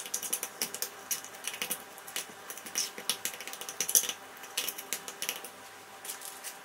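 Metal spoon clicking and scraping against a stainless steel saucepan while mashing soft steamed yam bean, in irregular taps several a second that stop about five and a half seconds in.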